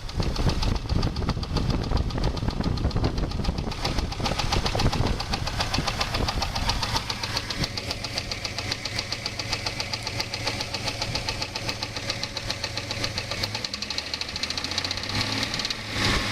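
2001 Jeep Grand Cherokee 4.0 straight-six running with a fast, even knocking, with wind buffeting the microphone in the first few seconds. The knock is loudest at the exhaust manifold where it joins the engine. The owner has been told it doesn't sound like a rod and suspects the timing chain tensioners, a cracked or loose flex plate, a vacuum hose or rattling heat shields.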